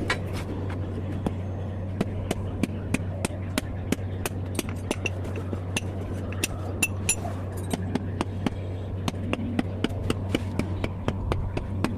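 A hammer striking metal in quick, irregular light blows, several a second, some with a short metallic ring, over a steady low hum.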